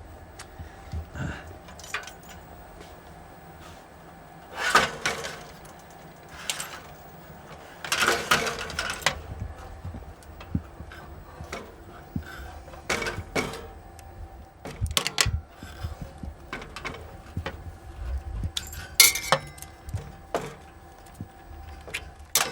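Intermittent metallic clicks, clinks and knocks of hardware being handled while a tape recorder rack assembly is taken apart, with a few louder clattering rattles scattered through.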